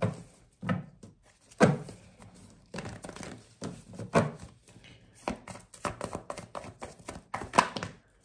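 A deck of tarot cards being shuffled by hand: the cards slap and tap against each other in irregular, sharp clacks.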